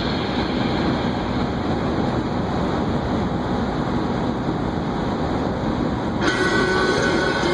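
Strong crosswind gusting at 40-plus mph, a loud steady rumble of wind noise. Near the end, a few steady tones join it.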